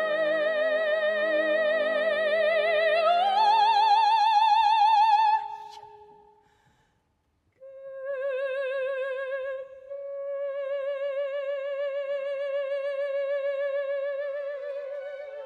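Operatic soprano singing long held high notes with a wide vibrato, over soft low orchestral accompaniment; about three seconds in she slides up to a higher note, which fades away by about six seconds. After about a second of silence she sings on alone, holding a lower note through to the end.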